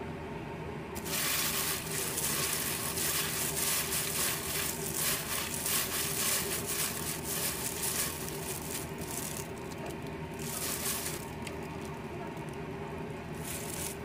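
Food sizzling in a hot pan while it is stirred and scraped: a crackling hiss starts about a second in and lasts some seven seconds, followed by two shorter bursts.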